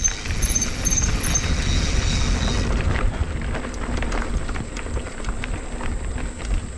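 A mountain bike being ridden over a dirt trail: wind buffeting the microphone as a steady low rumble, with scattered clicks and knocks from the bike rattling over the ground.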